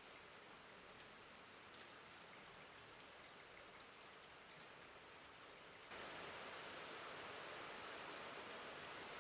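Faint, steady rain falling, an even hiss. About six seconds in it jumps suddenly louder and brighter, as at a splice between two rain recordings.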